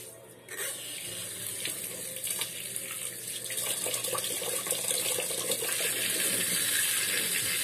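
Kitchen tap running into a pot of raw rice in a stainless steel sink while a hand swishes the grains, filling the pot with water. The water comes on about half a second in and grows louder.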